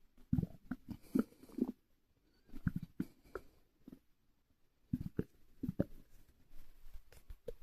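Human stomach gurgling close to the microphone from air in the stomach: clusters of short bubbling pops and squelches in three or four bursts, with brief pauses between them.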